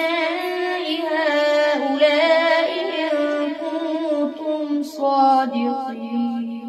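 A boy reciting the Quran in a slow, melodic tajweed style, one pitched voice drawing out each phrase. About five seconds in he settles on a long held low note that fades away near the end.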